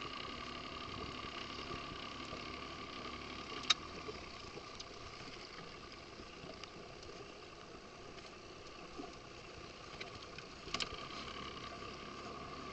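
Motorboat engine running steadily at low speed, a constant whine over wind and water noise, with two sharp clicks, one about four seconds in and one near the end.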